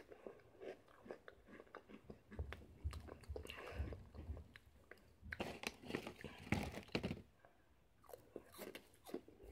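A person chewing a mouthful of Chester's Flamin' Hot Fries, crunchy corn-and-potato snack sticks: irregular crisp crunches, loudest in the middle, with a short lull before more crunching near the end.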